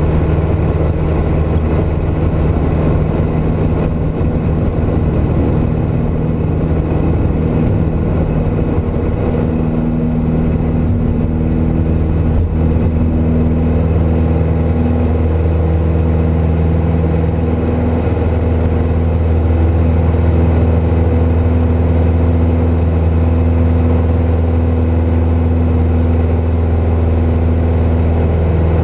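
Piper PA-28's piston engine and propeller running steadily at takeoff power, heard from inside the cockpit. A rougher rumble under it for the first ten seconds or so eases off as the plane leaves the grass runway and climbs out.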